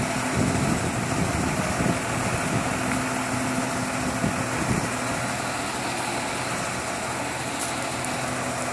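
A heavy vehicle's engine idling steadily, a continuous hum under a broad hiss.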